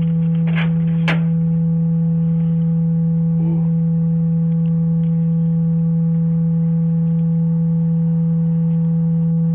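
A steady low hum at one unchanging pitch, with faint higher tones above it, holding at the same level throughout.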